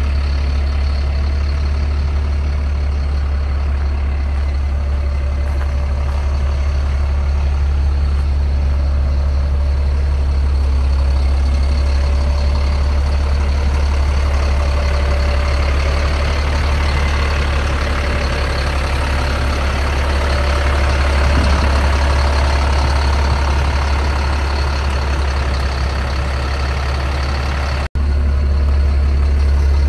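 Caterpillar C7 ACERT inline-six diesel engine idling steadily with a deep, even drone. The sound drops out for an instant near the end.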